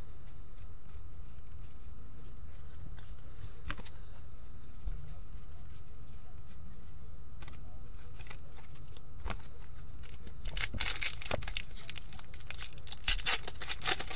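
Hockey cards handled with a few faint clicks, then about ten seconds in a foil-wrapped Upper Deck hockey card pack is torn open, its wrapper crinkling and crackling.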